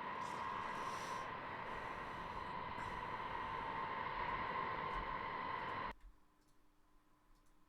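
B-52 bomber's jet engines running with a steady whine over a rushing noise; the sound cuts off abruptly about six seconds in, leaving near silence.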